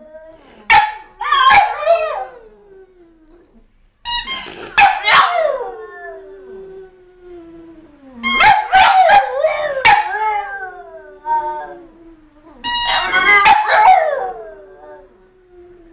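French bulldogs howling in four bouts, each starting with sharp high yelps and then long wavering howls that slide down in pitch and trail off.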